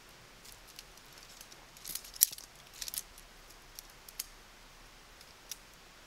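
A scatter of small sharp clicks and light rattles of hard objects being handled, with the loudest click about two seconds in and a few single clicks after.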